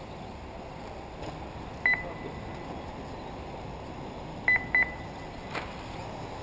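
Short high electronic beeps from a race lap-counting system: one double beep about two seconds in, then two more close together a little past the middle, over a steady background noise.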